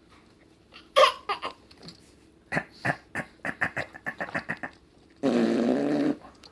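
A baby blowing a spluttering raspberry with his lips, then a quick run of short babbling sounds, about five a second, and near the end one held vocal note of about a second.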